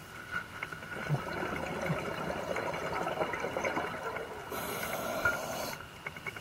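Scuba diver's breathing through a regulator, heard underwater: a few seconds of crackling exhaust bubbles, then a steady hiss of inhalation through the regulator for about a second, starting about four and a half seconds in and stopping sharply.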